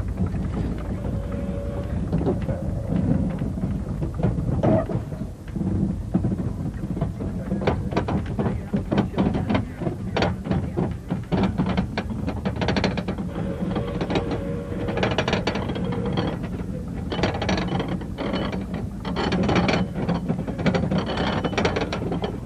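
Narrow-gauge railway carriage pushed by hand along the rails: a steady rumble from the rolling wheels, with clattering and knocking that gets busier in the second half.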